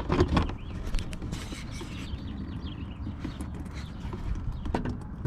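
Irregular clicks and knocks of hand tools and the bucket being worked under the car as the thermostat housing comes loose, with a low rumble behind them.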